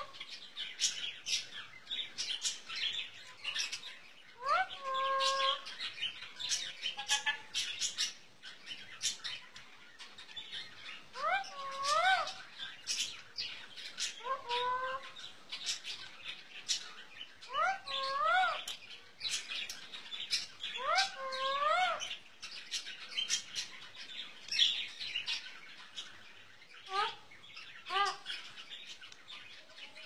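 Pet parrot giving about five rising, whistle-like calls a few seconds apart, with many short, sharp smacking clicks of kissing throughout. A few brief chirps come near the end.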